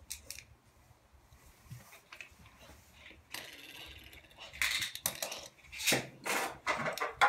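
Faint off-camera handling noise: a few clicks at first, then after a quiet stretch some rustling and several short clicks and knocks in the second half.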